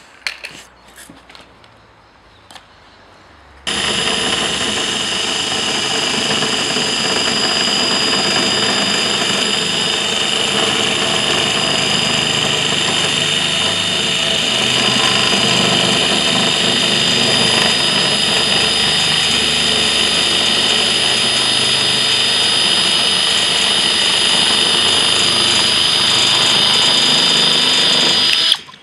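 Cordless drill driving a Malco Turboshear FC shear attachment, cutting through a fibre cement sheet: a steady whine with several high tones. It starts about four seconds in, runs for over twenty seconds and stops just before the end. A few light clicks and taps come before it.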